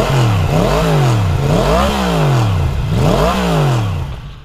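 Motorcycle engine revved three times, its pitch rising and falling smoothly with each rev, fading out near the end.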